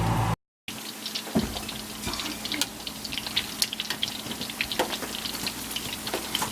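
Spiral-cut potatoes deep-frying in hot oil, crackling with many irregular sharp pops. The sound begins abruptly about half a second in, after a brief cut to silence.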